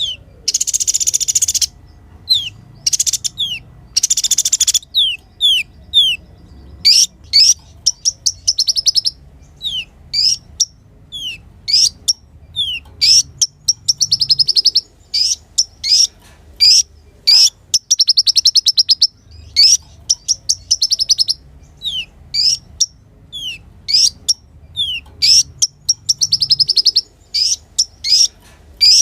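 Kolibri ninja sunbird singing: quick, high, sharply falling chirps alternating with rapid, buzzy high trills of about a second each.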